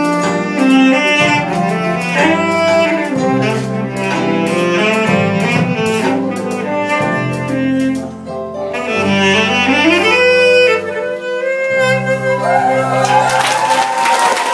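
Solo saxophone playing a slow worship melody over an accompaniment with sustained bass notes, ending on long held notes. Applause begins near the end.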